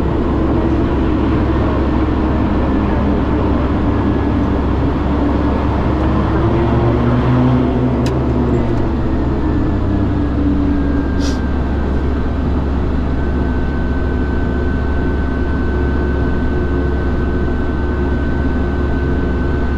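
Steady cabin drone of the Socata TBM 910's Pratt & Whitney PT6A turboprop running, a constant low hum with a faint high whine over it. Two brief clicks come about eight and eleven seconds in.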